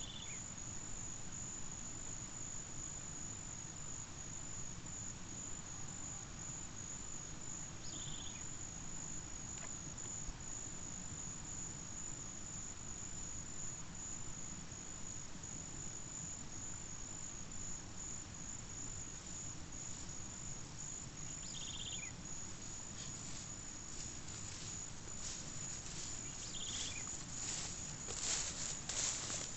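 Insects trilling in a steady, high-pitched drone, with a few short chirps here and there. Near the end, footsteps swishing through tall grass come up close and grow louder.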